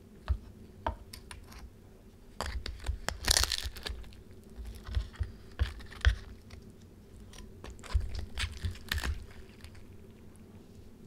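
Metal tongs pulling apart a slow-roasted pork shoulder: the crisp crackling skin crunches and the tender meat tears, with clicks of metal and knocks on the wooden board, in three bursts.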